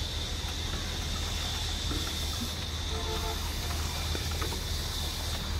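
A machine drone running steadily, a constant low hum with a thin steady high whine over it.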